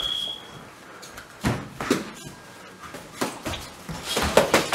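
Sparring: punches and parries smacking between a boxing glove and bare hands, with footsteps scuffing the gym floor; a few separate hits, then a quick flurry near the end, the loudest part. A short high squeak sounds at the very start.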